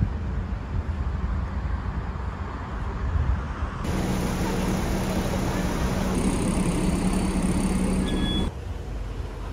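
City street traffic rumble, then a bus engine idling at the stop with a steady low hum; a short high beep sounds near the end.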